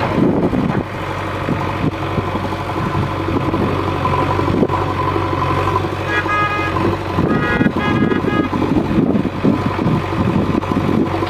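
Diesel engine of a JCB 3DX backhoe loader running steadily under work, with a vehicle horn sounding twice, briefly, about six and seven and a half seconds in.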